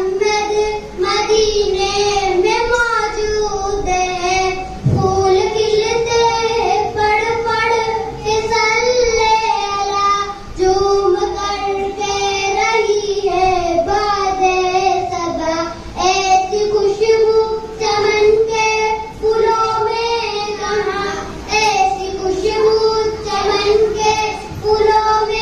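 A child singing a naat, an Urdu devotional poem, unaccompanied and amplified through a microphone, in long held and wavering notes.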